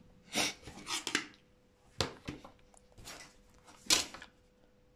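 A plastic set square being handled on drawing paper. A few short scrapes come in the first second, then sharp taps about two and four seconds in as it is set down and lined up.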